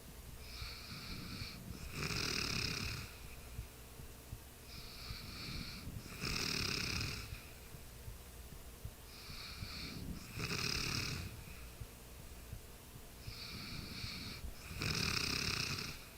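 Sleeper snoring steadily, about one breath every four seconds: four breaths, each a fainter sound followed at once by a louder one.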